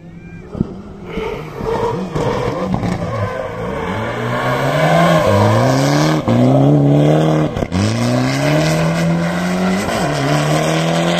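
Rally car accelerating hard and growing louder as it approaches. The engine's pitch climbs and drops back at each of about four gear changes.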